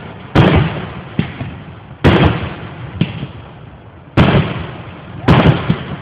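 Aerial fireworks shells bursting: about five loud booms roughly a second apart, each trailing off in a rolling rumble, with a smaller pop between them.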